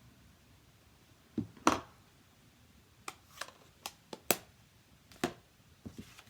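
Irregular sharp clicks and taps of small craft supplies being picked up and set down on a work table, about nine in all, two of them clearly louder.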